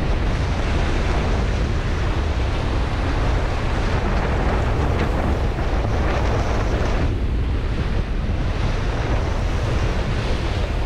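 Strong wind buffeting the microphone over the rush of waves and spray along the hull of a sailing yacht heeled hard and beating close-hauled through a rough, overpowering sea.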